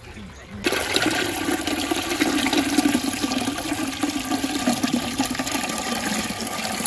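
Pink fruit juice poured in a heavy, steady stream from a large metal pot through a plastic strainer into a metal pot below, splashing as it starts about a second in.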